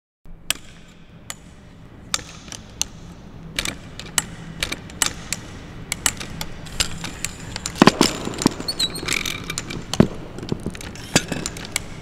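Camera gear being handled: irregular clicks and knocks of tripod fittings and camera controls, with a louder cluster of knocks about two-thirds of the way through.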